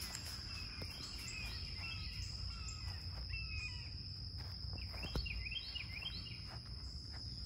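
Steady high-pitched drone of insects, with a bird calling in two runs of short arching chirps, one near the start and one past the middle.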